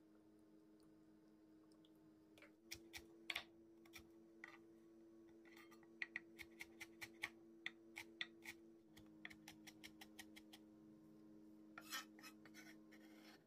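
Chef's knife finely chopping green chili peppers on a wooden cutting board: sharp knocks of the blade on the board, scattered at first, then a run of about three chops a second, and a quick cluster near the end, over a faint steady hum.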